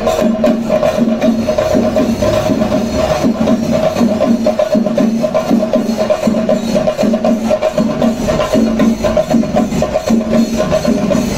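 Festival procession music: live percussion with sharp, clicking strikes and a steady beat over a held tone.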